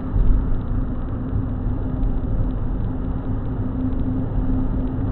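Car driving, heard from inside the cabin: a steady mix of engine drone and tyre noise on the road, with a constant low hum and a dull, muffled top.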